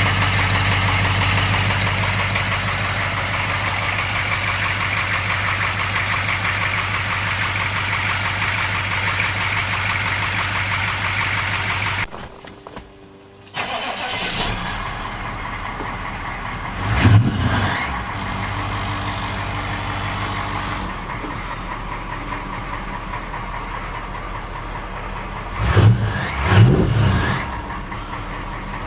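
A diesel truck engine running steadily. After a cut about 12 seconds in it runs quieter, with a few brief louder swells that sound like short revs.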